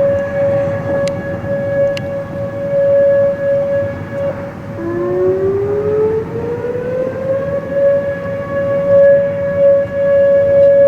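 Outdoor tornado warning sirens wailing: one holds a steady tone while a second winds up about five seconds in, its pitch rising until it joins the first.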